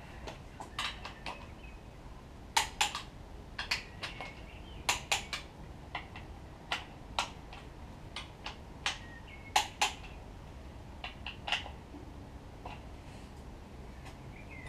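Metal hand tools clicking and clinking against a Subaru engine's timing-end bolts and parts as they are checked for tightness: irregular sharp clicks, often two in quick succession.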